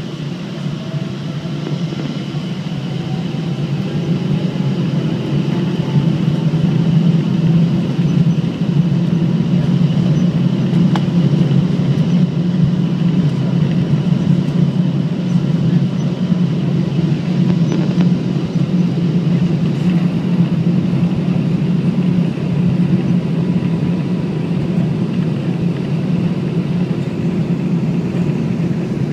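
Boeing 777-200ER engines heard from inside the cabin, spooling up to takeoff thrust: a faint rising whine in the first seconds while the low, dense engine noise grows louder over about six seconds. The noise then holds steady through the takeoff roll.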